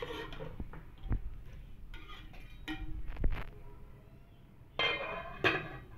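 A metal spoon stirring and scraping raw meat, onions and tomatoes around a metal cooking pot, with a couple of sharp knocks of the spoon against the pot.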